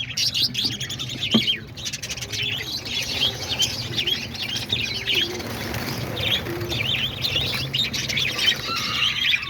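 A flock of small aviary birds chirping continuously, many short overlapping chirps and tweets, over a steady low hum.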